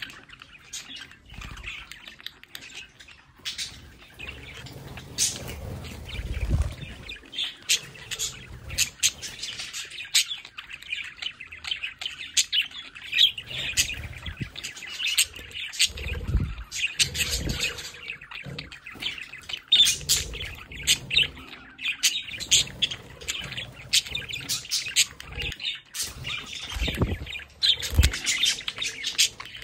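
Budgerigars chirping and chattering in a dense run of quick, sharp calls, with a few short low thumps scattered through, and wing flutter as a budgie flies across.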